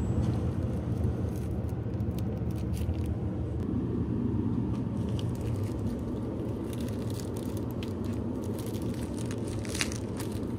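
Plastic snack packaging rustling and crinkling as products are picked off convenience-store shelves, a few sharp crackles and clicks over a steady low rumble of store ambience.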